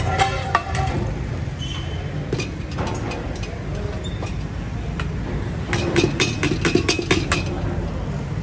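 Steel cookware clinking and knocking: a steel plate and bowls striking the rims of steel pots, with scattered knocks early on and a quick run of clinks about six seconds in, over a steady low rumble.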